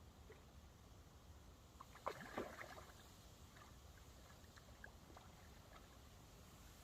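Near silence, with one brief faint burst of sound about two seconds in and a few faint ticks.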